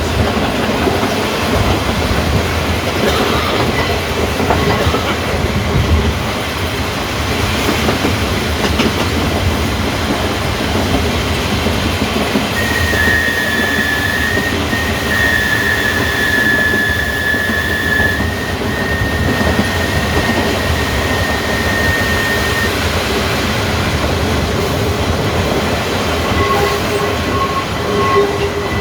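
Electric tramcar running on rails with a steady rumble of wheels and track. A high-pitched wheel squeal starts about twelve seconds in and lasts some ten seconds, and fainter steady tones come in near the end.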